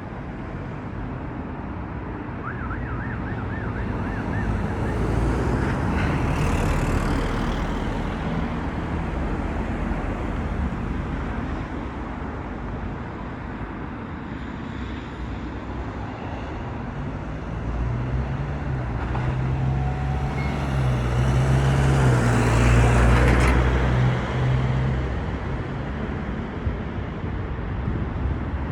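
Road traffic: motor vehicles passing, with louder passes about six seconds in and again near twenty-two seconds. A heavy engine hums low and steady for several seconds in the second half. A brief fast-warbling siren-like tone sounds about two and a half seconds in.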